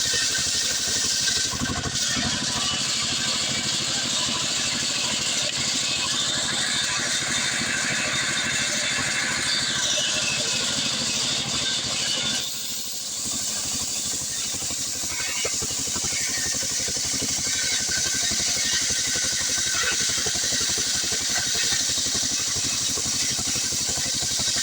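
Stihl 070 two-stroke chainsaw running under load, sawing a hardwood acacia log lengthwise. The engine note shifts up and back down in the middle and dips briefly about halfway before carrying on steadily.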